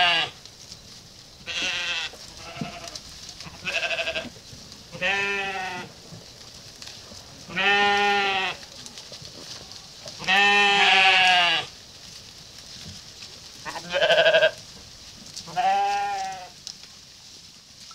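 A flock of sheep bleating, about eight calls one after another from several animals, some short and some drawn out for over a second.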